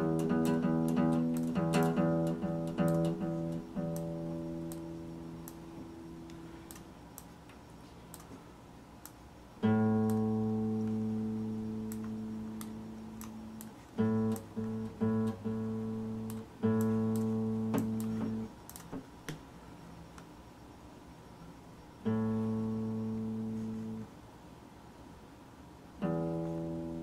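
Epiphone acoustic guitar: notes plucked during the first few seconds while a tuning peg is being turned, then single strummed chords about every four seconds, some left to ring and some stopped after a second or two.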